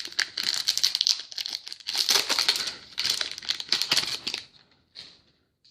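Trading-card pack wrapper crinkling and tearing as a stubborn pack is worked open, stopping about four and a half seconds in.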